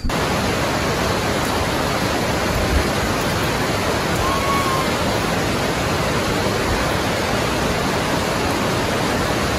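A loud, steady, even rushing noise, like running water or wind, that starts abruptly and does not change, with a faint short chirp about four seconds in.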